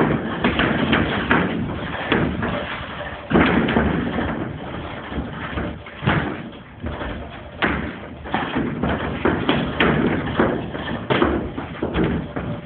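Sparring blows: gloved punches landing in an irregular run of sharp thuds, mixed with feet scuffing and stepping on the gym floor.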